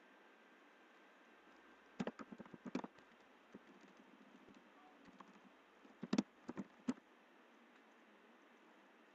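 Two short bursts of clicking keystrokes, typing on a computer keyboard: one about two seconds in and one about six seconds in.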